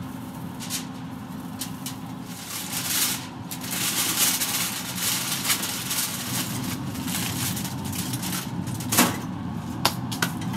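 Aluminium foil crinkling as it is folded and crimped tightly around beef ribs, over a steady low hum. Near the end a few sharp clicks as the foil packet is set down on the metal grill grate.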